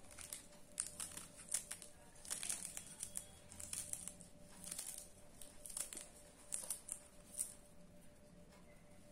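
Fresh spinach leaves rustling as their crisp stems are nipped off with a small knife: irregular crackly snaps that stop about seven and a half seconds in.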